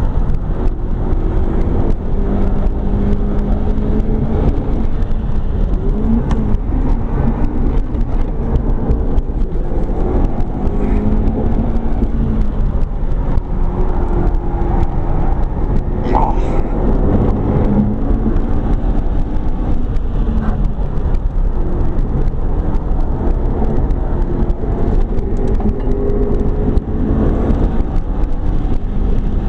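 McLaren 12C's twin-turbo V8 heard from inside the cabin at speed, its pitch climbing and dropping again and again as the car accelerates and lifts off, over a constant heavy rumble of road and wind noise. A short sharp noise comes about halfway through.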